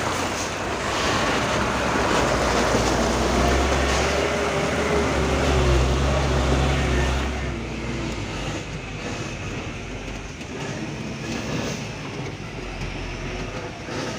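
Dump truck's diesel engine running as the truck crawls along a rough, muddy dirt road, with rattling from the body. A deep rumble dominates the first half, then drops away about seven seconds in, leaving a quieter engine drone.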